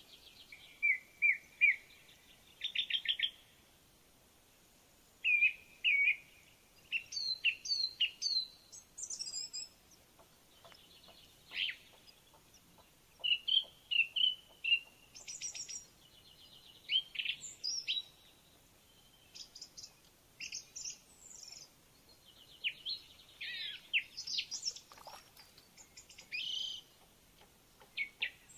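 Songbirds singing: repeated short bouts of chirps and trills, one phrase after another with brief pauses, over a quiet background.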